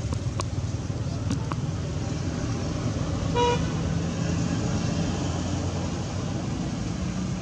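Road traffic: a motor vehicle's engine runs as a steady low rumble, with one short horn toot about three and a half seconds in.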